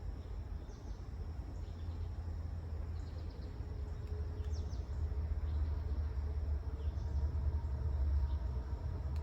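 Low rumble of an approaching EMD SD38 diesel locomotive, growing louder from about halfway through, with faint high chirps scattered over it.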